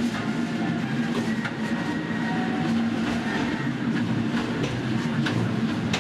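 Cable-hauled Katoomba Scenic Railway car running down its steep incline, heard from aboard: a steady rumble of wheels on rails with rattling and scattered clicks.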